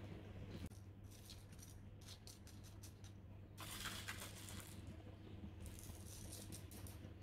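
Small pebble-like top-dressing granules rattling and clicking as they are scooped from a plastic tub and poured onto potting soil, in several short bouts, the loudest about four seconds in.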